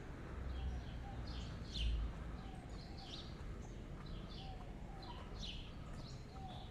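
Small birds chirping in the trees, short high chirps repeating about twice a second over a low, steady city rumble, with one low thump about two seconds in.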